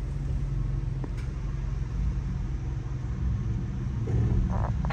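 Ford Bronco's 2.7-litre twin-turbo EcoBoost V6 running at low revs from inside the cabin, with a steady low rumble as the truck crawls slowly in four-low rock crawl mode.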